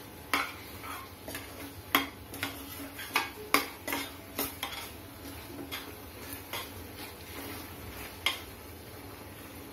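A spoon stirring a thick vegetable sauce in a stainless steel pan, clinking and scraping against the pan in irregular knocks. The knocks are frequent in the first half and thin out toward the end. The sauce has just had cornflour slurry added and is being stirred until it thickens.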